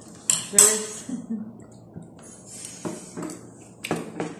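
Glass beer bottles and tableware clinking and knocking on a table: a handful of sharp clinks, the loudest about half a second in, with brief voices among them.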